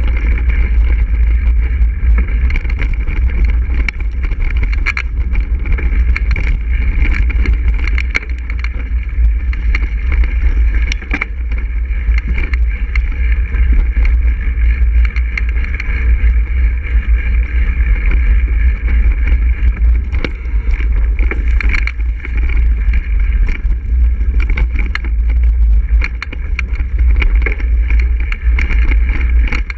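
Mountain bike riding over a leaf-covered dirt trail: a steady low rumble from the tyres rolling, with frequent knocks and rattles as the bike jolts over bumps.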